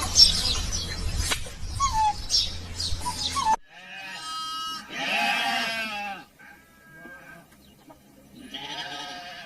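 Small birds chirping over a steady low hum, cut off suddenly about three and a half seconds in. Then a bleating animal calls several times in drawn-out bleats, the loudest about five seconds in and another near the end.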